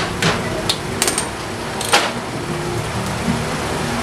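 Sharp metal clicks and clinks from hand tools and loosened head bolts being worked out of a Yamaha NMAX engine's cylinder head, a handful in the first two seconds, over a steady background hum.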